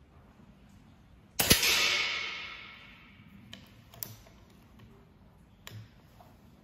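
One shot from a SnowPeak M60 .177 pre-charged pneumatic air rifle about a second and a half in: a sharp crack followed by a hiss and echo that fade over about a second and a half. A few sharp metallic clicks follow as the action is cycled for the next pellet.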